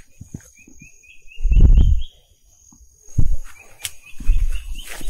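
A forest bird repeating a series of short, rising whistled notes over a steady, high-pitched insect whine. Three heavy, low thumps come about one and a half, three and four and a half seconds in.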